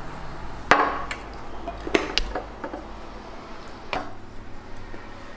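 Scattered knocks and clinks of tableware being handled and set down, about five in all, the sharpest one under a second in.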